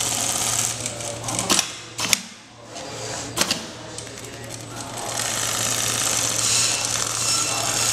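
JOOKE automatic pattern sewing machine running, stitching through a clamped template with a steady hum and rapid needle chatter. A few sharp clicks and a short lull come about two seconds in, then the steady stitching picks up again.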